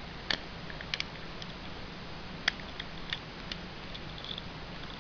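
A few light, scattered clicks and taps of small plastic toy parts being handled, here a Beyblade launcher and ripcord.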